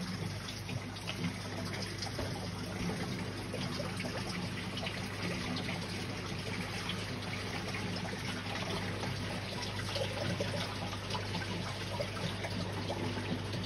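Aquarium water trickling and splashing steadily, as from a filter's return flow, over a steady low hum.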